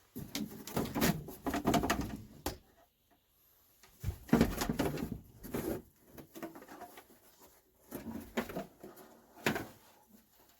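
Irregular knocks, clunks and scraping from parts being handled and pulled out of a stripped RV interior, in bursts with short quiet gaps between them.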